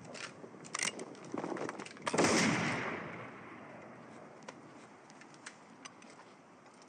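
A single flintlock rifle shot about two seconds in, with a long fading echo, preceded by a few sharp clicks and knocks.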